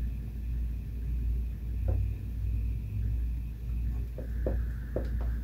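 Steady low background rumble, with a few faint light knocks in the second half as the mirror cell is held down in the plastic tub of water.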